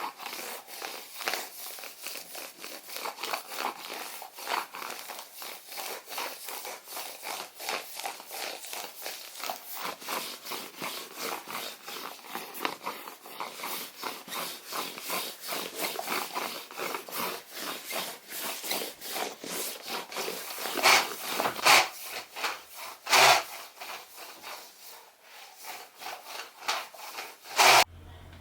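Bedding rustling and rubbing as a bed is made: sheets and covers are pulled and smoothed in quick, uneven strokes. A few louder swishes come about three-quarters of the way in and again just before the end.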